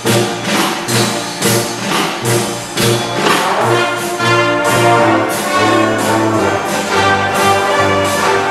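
A small band of trombone, trumpet, saxophone, clarinet, tuba and banjo playing a tune together, the tuba pulsing on the bass notes over a steady beat of about two strokes a second, with a cymbal.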